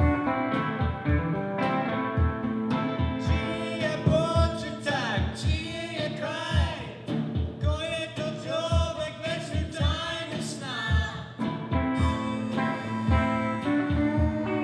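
Live rock band playing: electric guitars over a steady drum beat, with a man and a woman singing together from about four seconds in until about eleven seconds in.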